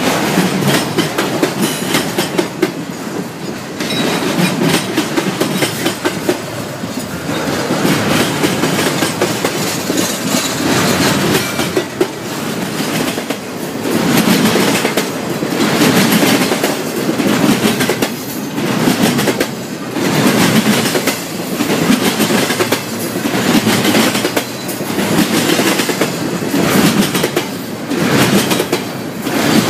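Freight train rolling past, autorack cars and then double-stack container well cars, its wheels clacking over rail joints in a steady rhythm. About halfway through the clacking settles into regular surges every second or two as each car's trucks pass.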